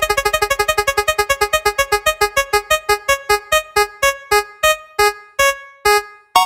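Spinning prize-wheel sound effect: one short pitched note repeated rapidly, then more and more slowly as the wheel coasts, stopping near the end.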